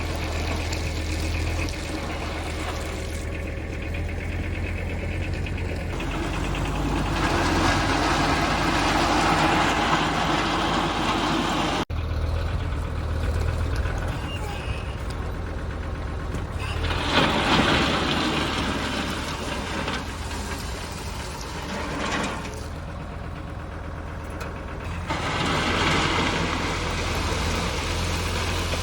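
Kubota tractor's diesel engine running steadily, with louder rushes of noise three times. The sound breaks off abruptly about twelve seconds in and picks straight up again.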